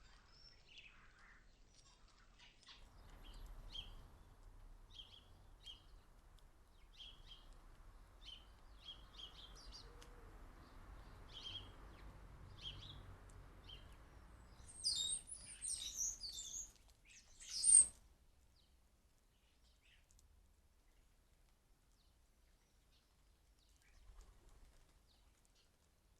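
Small garden birds calling: a string of short, single chirps about once a second, then a louder burst of higher, busier twittering that stops abruptly about two-thirds of the way through.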